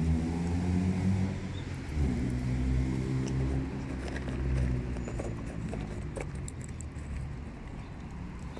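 An engine running out of sight, its pitch dipping and recovering about two seconds in, then slowly fading away.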